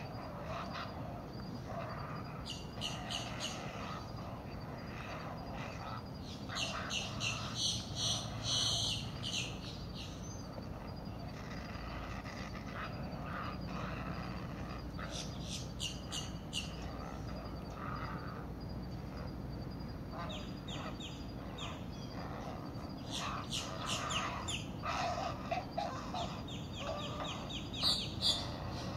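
Great blue heron chicks' begging calls: several bouts of rapid, chattering notes, loudest about a quarter of the way in and again near the end.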